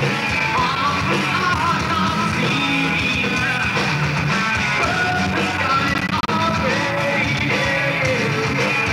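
Rock band playing live at a steady loud level, with electric guitars, bass and drums together and a singer's vocals over them.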